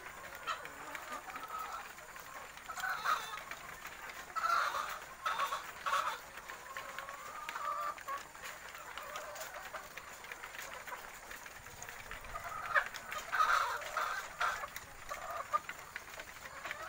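Many caged hens clucking and calling in irregular bursts, with the loudest flurries a few seconds in and again about two-thirds of the way through.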